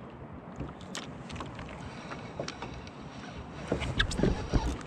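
Water lapping and sloshing against the plastic hull of a Hobie Passport 10.5 fishing kayak on a calm sea, with a few light knocks and taps on the hull, more of them about four seconds in.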